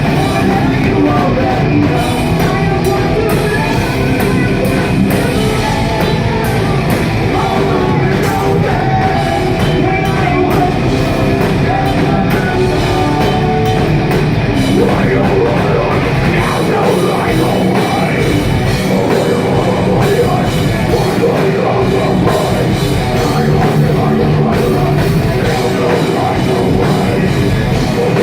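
Live metal band playing a song with full drums and guitars, loud and continuous. It is recorded on a phone whose microphone can't handle the volume, so the sound comes out distorted and poor.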